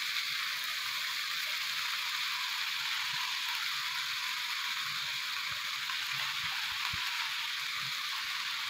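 Cabbage, carrot and capsicum sizzling steadily in hot oil in a wok as boiled rice is added, a dense, even crackle. A few soft knocks come in the second half.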